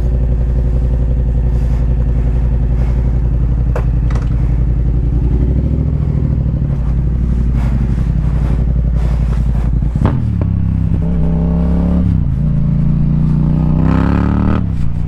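Yamaha XSR700's CP2 parallel-twin engine, breathing through an Akrapovic carbon exhaust, idling steadily after a cold start. About ten seconds in the revs rise, dip and rise again, then drop back near the end.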